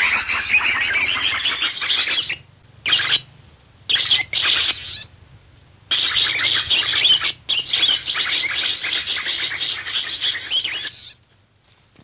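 Dense, fast twittering and chirping of small birds, loud and high, in several runs broken by short pauses, cutting off abruptly about eleven seconds in.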